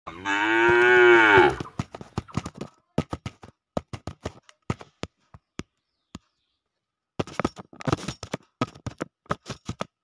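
A cow moos once, a single call lasting about a second and a half that rises and then falls in pitch. Light, sharp clicks and taps follow in irregular clusters, pausing briefly around the middle.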